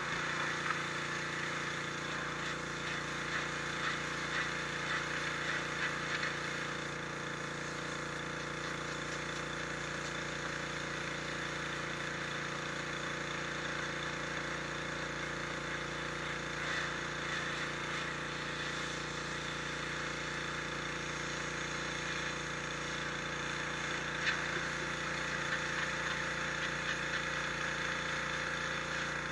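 High-pressure washer running steadily, its motor and pump humming under the hiss of the water jet spraying against stone.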